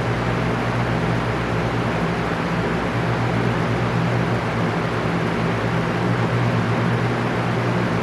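Electric fan running steadily: a constant whoosh of moving air over a low motor hum.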